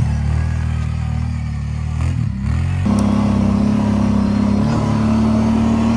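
Kawasaki Brute Force 750 ATV's V-twin engine running hard at high throttle, its pitch dipping and picking up again about two seconds in. About three seconds in the sound switches abruptly to a steady engine drone at cruising speed.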